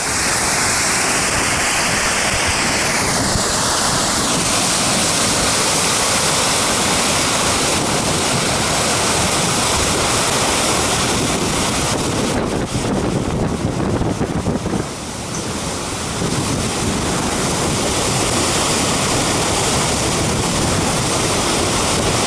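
Yosemite Falls rushing over the brink close by: a loud, steady rush of falling water that comes up suddenly at the start. Some wind on the microphone mixes in, with a short unsettled patch about two-thirds of the way through.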